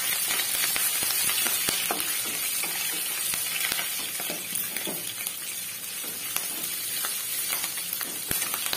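Green chillies sizzling and crackling as they fry in hot oil with peanuts, cashews and chana dal in a non-stick kadai, stirred with a wooden spatula. The sizzle is a little louder in the first few seconds, just after the chillies go into the oil, then eases slightly.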